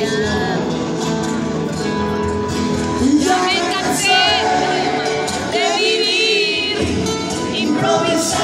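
Live concert music with singing, heard from within the audience. High wavering voices rise over the music twice, around the middle.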